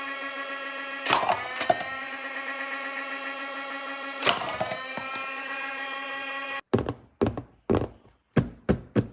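A steady droning chord with two sweeping hits, about a second in and again at four seconds, cuts off abruptly; then six sharp knocks follow in quick, slightly uneven succession.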